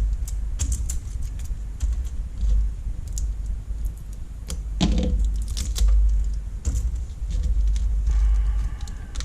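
Small plastic and metal parts of an LCD module clicking and rattling as they are pried and handled by hand, irregular light clicks over a steady low hum.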